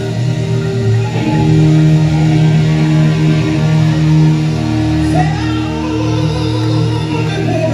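Live rock band playing, with long held guitar and keyboard chords and voices singing over them.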